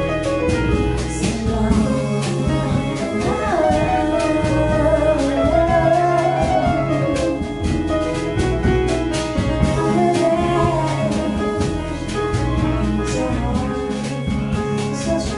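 Live jazz: a vocalist singing over keyboards, bass and drums with cymbals.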